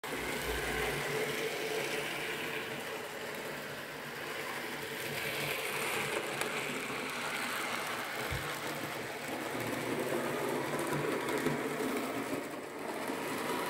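N gauge model train running on the layout: the small electric motor of the locomotive whirring steadily as it runs along the track, with a single light knock about eight seconds in.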